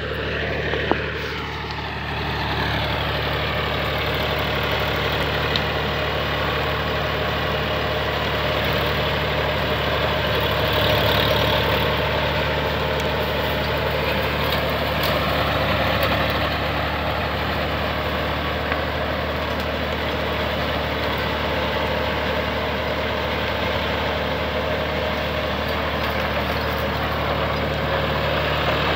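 Massey Ferguson 7250 DI Power Up tractor's diesel engine running steadily under load as it drives a 42-blade Balwan rotavator, its blades churning the soil.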